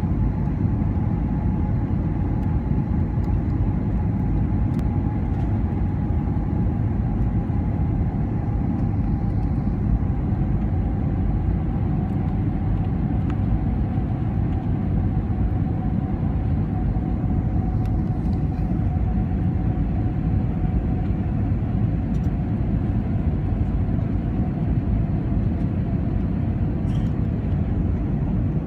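Airliner cabin noise on a descent: a steady, loud low rumble of jet engines and rushing air, with a faint whine that slowly drops in pitch.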